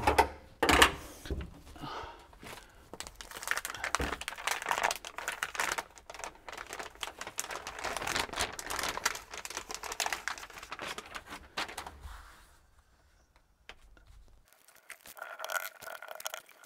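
Crinkling, rustling and tearing of a sheet of Insul-Layer sound-insulation material and its paper backing being handled and fitted. The sound is busy and irregular for most of the time, stops for a couple of seconds, then resumes more softly near the end.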